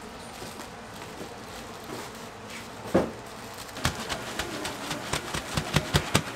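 A single dull thump about three seconds in, then a quick run of sharp knocks, about four or five a second, over steady background noise.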